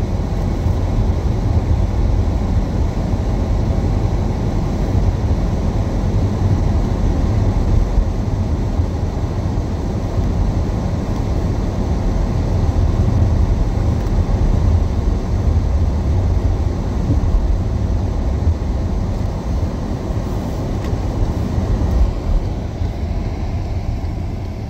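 Car driving on wet pavement, heard from inside the cabin: a steady low rumble of engine and tyre noise.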